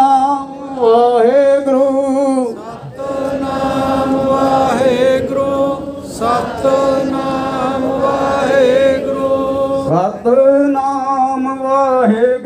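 Sikh devotional chanting: voices singing long, held melodic notes. A fuller, denser passage comes in about three seconds in and lasts until about ten seconds.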